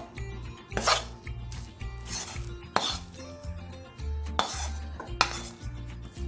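Steel spoon scraping thick cooked burfi mixture out of a metal kadai and knocking it onto a steel plate: about five scrapes and sharp metal clanks, over background music with a steady low beat.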